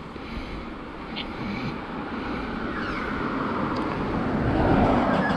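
A vehicle passing by, its noise building steadily and loudest near the end.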